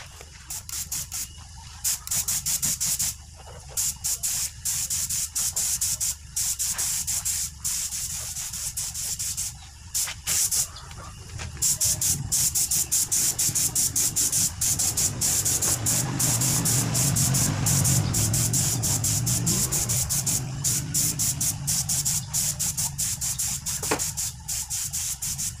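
Compressed-air gravity-feed paint spray gun hissing in many short on-off bursts, then spraying almost without a break over the second half. A low hum runs underneath from about halfway.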